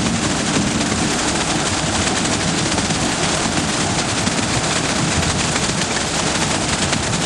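Loud, steady rattling clatter of heavy machinery running, with no pauses or changes: the working noise of a self-loading concrete mixer truck.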